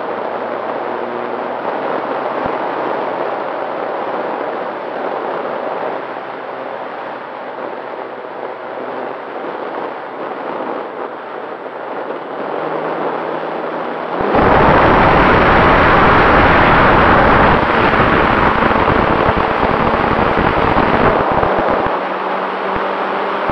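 Radio-controlled Valiant model airplane's motor and propeller running in flight, heard from the onboard camera under heavy wind rush on its microphone. About two-thirds of the way through the noise jumps suddenly louder and harsher, then eases a little near the end.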